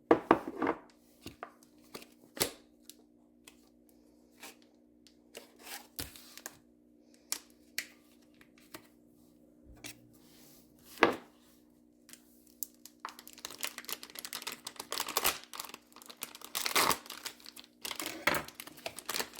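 Plastic packaging of imitation crab meat being handled and torn open, with scattered clicks and knocks at first and dense crinkling from about two-thirds of the way in. A faint steady hum sits under the first part.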